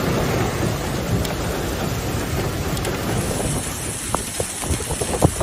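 Heavy rainstorm: a dense, steady rush of rain with wind buffeting the microphone. In the last second or so the rush thins and a run of short sharp knocks comes through.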